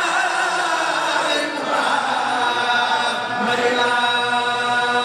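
A group of women chanting a zikr, the Sufi devotional chant, together in long held, wavering tones.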